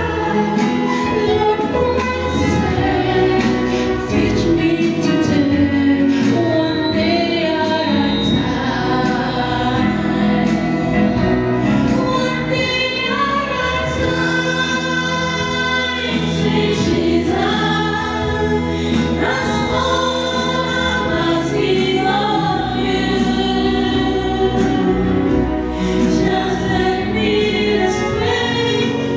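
Live gospel choir singing, led by a male soloist on a microphone, with keyboard and violin accompaniment.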